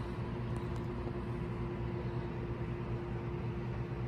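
A steady machine hum: a low drone with a steady higher humming tone above it over a faint hiss, unchanging throughout.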